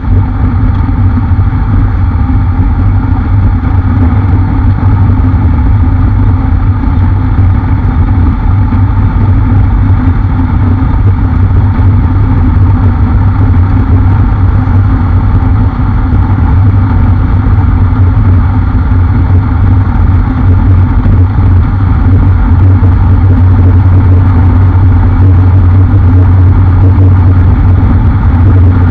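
Motorcycle cruising at road speed, its engine running steadily under a heavy low rumble of wind and road noise. The sound grows a little louder about halfway through.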